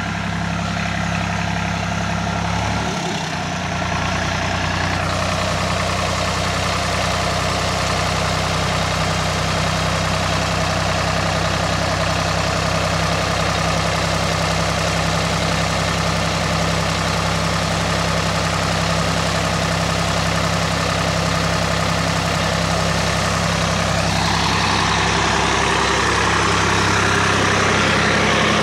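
Swaraj 855 FE tractor's three-cylinder diesel engine running steadily while it powers the hydraulic tipping of a loaded trolley. It dips briefly about three seconds in, and grows louder and harsher over the last few seconds.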